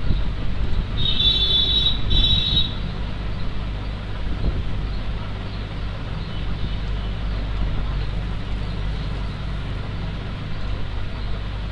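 Steady low background rumble with a constant hum, and a brief high-pitched tone about a second in, broken into two parts.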